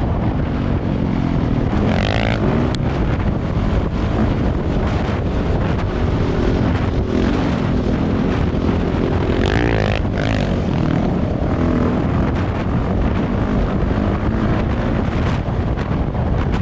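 Off-road engine running and revving, with its pitch rising and falling twice, under heavy wind buffeting on the microphone.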